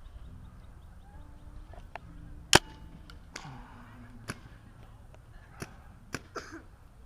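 Paintball marker shots: one sharp, loud shot about two and a half seconds in, then several fainter pops spread over the next four seconds.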